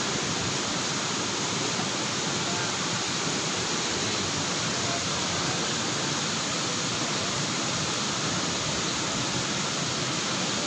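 Steady rushing of a nearby waterfall, an even, unbroken roar of falling water.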